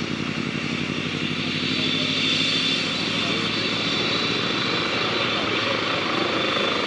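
Trauma helicopter on the ground with its turbines and main rotor running: a steady turbine whine over a fast rotor beat, growing a little louder about two seconds in as it readies to depart.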